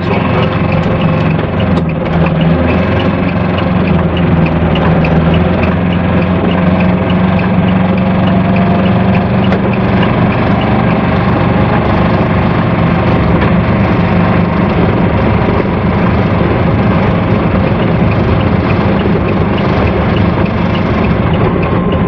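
The Kubota 400 cc two-cylinder diesel of an Aixam Mega Multitruck van runs steadily under way, heard loud inside the small cab. A faint regular ticking runs over it.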